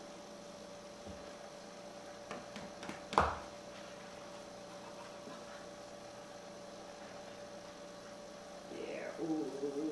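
Steady electrical hum over quiet room tone, with a single sharp thump about three seconds in. Near the end a short wavering voice-like sound begins.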